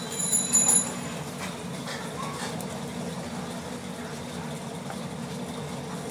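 Steady low mechanical rumble in the background. A louder, high-pitched pulsing whine stops about a second in.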